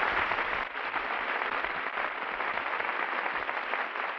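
Studio audience applauding, a steady wash of clapping.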